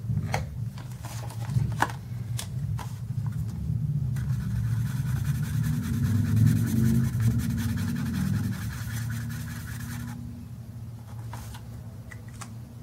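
Paper and cash being handled, with a few light taps in the first three seconds, then about six seconds of steady scratching on paper. A low rumble runs underneath.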